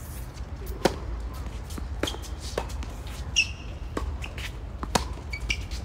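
Tennis ball struck by rackets in a doubles rally, starting with a serve about a second in: sharp pops roughly once a second, mixed with the ball bouncing on the hard court.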